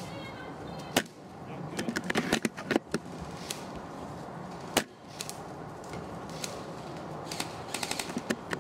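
Sharp clicks and cracks of airsoft guns firing, as single shots and short quick bursts. There is a cluster about two seconds in and another near the end.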